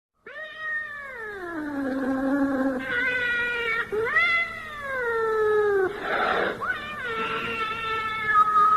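Cat yowling (caterwauling): a run of long, drawn-out calls that slide down in pitch, one after another, with a short rush of noise, like a hiss, about six seconds in.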